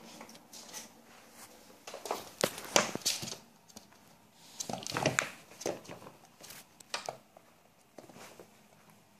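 Two Bengal cats play-fighting on a wooden floor: scuffling, paws scrabbling and bodies bumping in irregular flurries of short knocks, busiest about two to three seconds in and again around five seconds.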